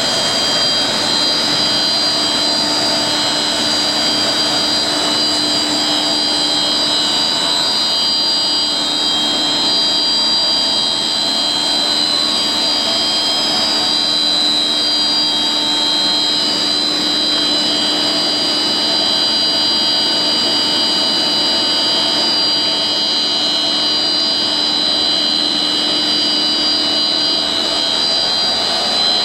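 HDPE blown film extrusion machine running: a steady, loud machine noise with several constant high whining tones.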